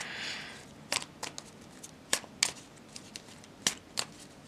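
A deck of tarot cards being shuffled by hand: a short papery rustle, then a run of irregular sharp clicks as the cards snap against each other.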